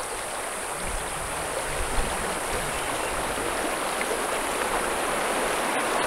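A river rushing over rocks: steady running-water noise.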